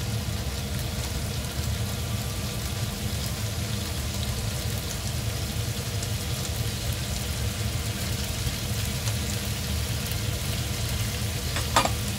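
Sausages sizzling and crackling faintly in a frying pan over a steady low hum. A single sharp click near the end.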